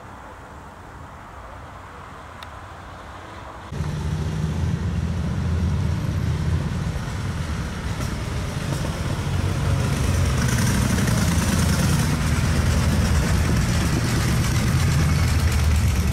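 A column of motorcycles riding slowly past, many engines running together in a dense low drone that gets a little louder toward the end. It cuts in abruptly about four seconds in, after faint roadside ambience.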